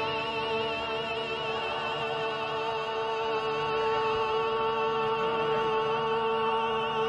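Male operatic voice holding one long high note with vibrato, in full-voiced opera style.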